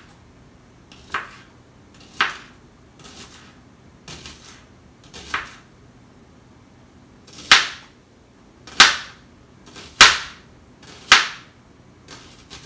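Kitchen knife slicing a shallot, each cut ending in a sharp tap of the blade on a plastic cutting board, slow and irregular at about one cut a second, the cuts in the second half louder.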